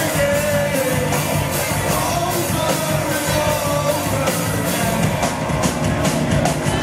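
A rock band playing live, heard loud from within the crowd: electric guitars, drums and a sung vocal line. The drum hits come through more plainly in the second half.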